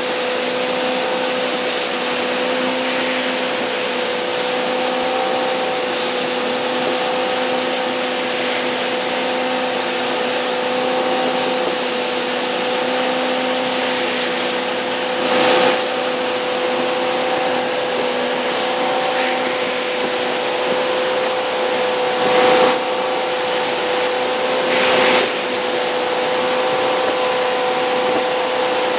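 MasterCraft ski boat running at steady towing speed: its engine drone holds one even tone over the rush of the wake water and the wind. Three short, louder rushes of noise break in during the second half.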